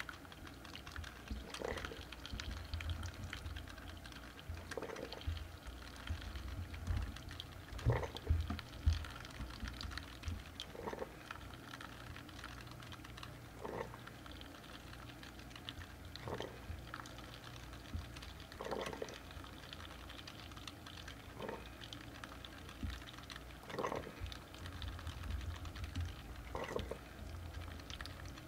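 Single-cup coffee brewer dispensing coffee into a paper cup: a thin stream running over a low machine hum, with a soft spurt about every two and a half to three seconds.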